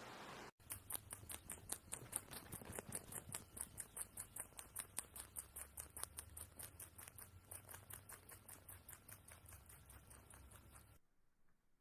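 Rabbit chewing a green stem and a dandelion flower close to the microphone: quick, even crunching at about five chews a second, stopping near the end.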